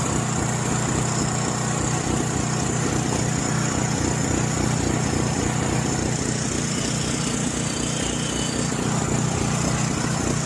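John Deere 6200-watt portable generator's engine running steadily at high RPM, with no power reaching the outlets; the tech puts the dead outlets down to the high RPM, on a carburetor varnished by years of old fuel.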